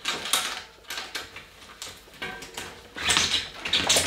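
Clicks, knocks and rattles of a mountain bike's front wheel and axle being worked loose and lifted out of the suspension fork, with a busier clatter about three seconds in.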